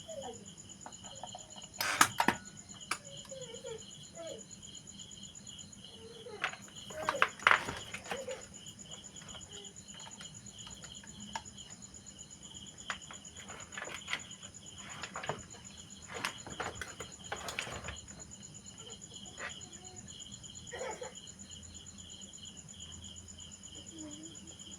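Several sharp clicks and clatters of hands working on a battery charger and its mains connection, the loudest about two seconds in and again about seven seconds in, over the steady pulsing chirp of crickets.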